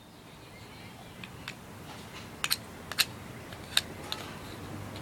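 Sharp metal clicks from a folding multi-tool being handled: a couple of faint ticks, then four crisp clicks between about two and a half and four seconds in.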